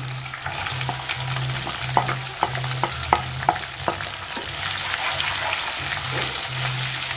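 Chopped onions sizzling in hot oil as they are stirred in the pan, with a dozen or so short clicks of the spoon against the pan, most of them in the first half.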